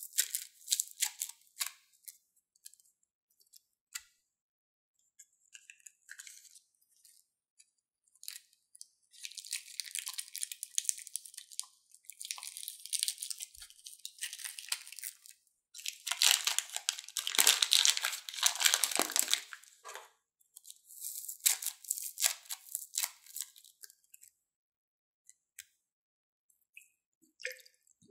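Crackling, crinkling rustle of plastic piping bags packed with foam beads being squeezed and handled, the beads crunching against the plastic as they are pushed out. It comes in stretches of a few seconds with scattered clicks between, loudest a little past the middle.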